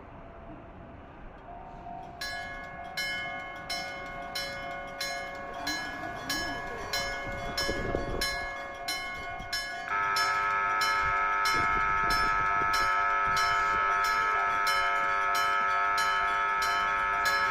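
Railway level-crossing warning bell ringing in an even repeated strike, about two to three strikes a second, starting about two seconds in and growing louder. About ten seconds in it steps up in loudness as a second bell tone of a different pitch joins, the two ringing on together.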